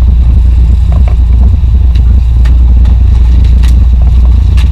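Sportfishing boat's engines running steadily, a loud low drone, with a few short sharp clicks scattered through it.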